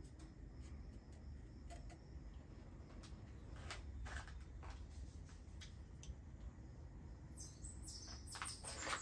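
Faint scattered clicks and light handling sounds from digital calipers being lifted off a steel test bar, over a low steady hum. A few clicks stand out about four seconds in, with more rustling and clicking near the end.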